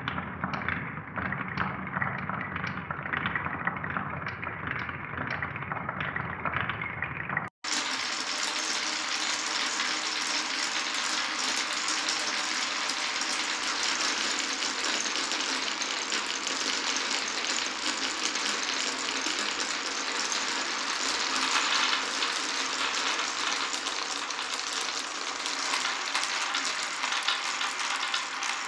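Marbles rolling and clacking along a wooden marble run, with a regular run of clicks. About seven and a half seconds in the sound cuts briefly, and a denser, brighter rattle of many marbles rolling together takes over.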